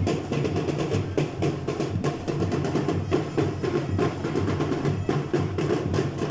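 Marching parade drums playing a continuous, busy beat.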